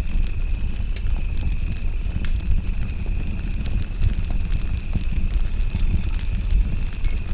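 Campfire crackling, with scattered sharp pops over a low rumble, while crickets chirp steadily in a high, rapidly pulsing trill.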